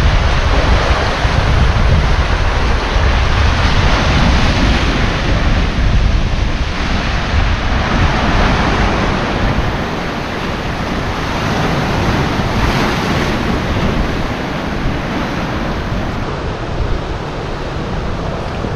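Sea surf breaking and washing over a rocky shore, swelling and falling every few seconds, with wind rumbling on the microphone, heavier in the first half.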